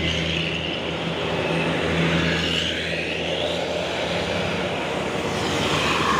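Tour buses in a convoy passing along the road: a steady low engine drone with tyre and road noise.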